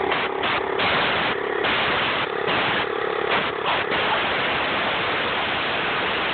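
Compressed air hissing from an air-compressor blow gun, in a string of short blasts and then held on steadily from about four seconds in. A steady motor hum shows through between the early blasts.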